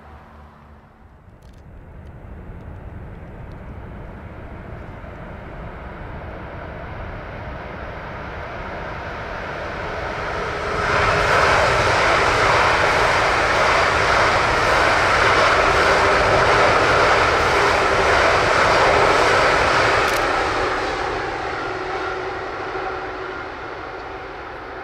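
ICE high-speed electric train passing at speed: a rushing noise that builds for about ten seconds, is at its loudest for about nine seconds as the train goes by, then fades as it runs away.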